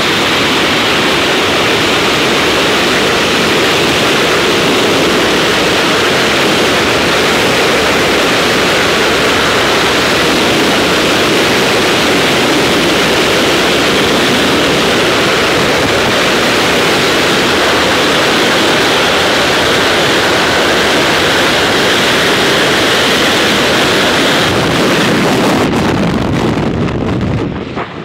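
Freefall wind rushing across a skydiver's helmet-camera microphone: a loud, steady rush that thins out and drops away sharply near the end.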